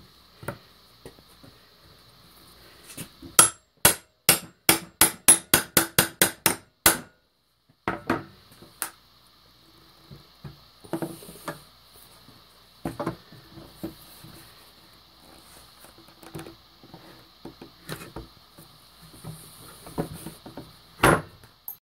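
Hammer striking a steel flat pry bar about a dozen times in quick succession, roughly three blows a second, driving the bar's nail slot under a nail head in a board. Scattered knocks and scrapes of the bar on the wood follow as the nail is levered out, with one louder knock near the end.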